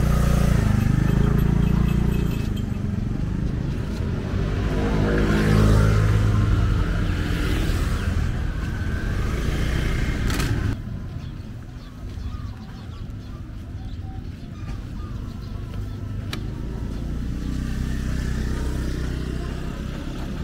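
Road traffic going by: engines of passing motor vehicles, loudest as one passes about five seconds in. The sound drops abruptly about ten seconds in, then another engine builds up near the end.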